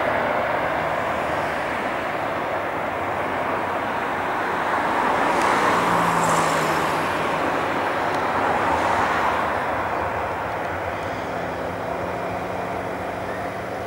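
Boeing 737-800's CFM56-7B jet engines during landing rollout: a broad rushing roar that swells to its loudest about six seconds in as reverse thrust builds, then slowly eases.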